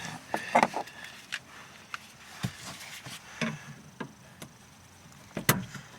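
Scattered light clicks and knocks of hands working on fuel line connectors and clips, with the sharpest click about five and a half seconds in.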